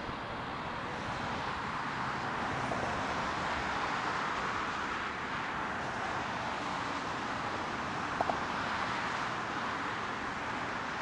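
Road traffic hiss from vehicles passing on the causeway: a steady tyre-and-engine noise that swells for a few seconds and then eases, with two brief clicks about eight seconds in.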